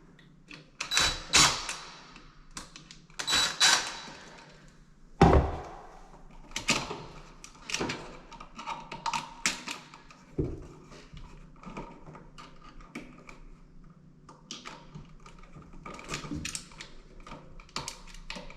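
Handling noises of a GFCI outlet being rewired: clicks, knocks and scrapes as its wires are moved between the line and load terminals. The loudest knocks come in the first five seconds, followed by softer, irregular ticking and rubbing.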